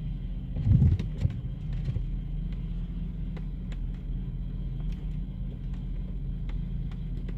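Car driving with a steady low engine and road drone, a louder bump about a second in, and scattered light clicks and rattles.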